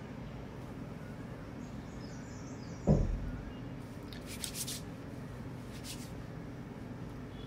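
A steady low hum of room tone, with one sudden dull thump about three seconds in and a few short soft rustles after it.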